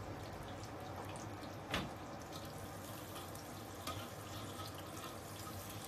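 Chopped leek frying in hot oil in a wok: a steady, soft sizzle, with a single sharp click about two seconds in.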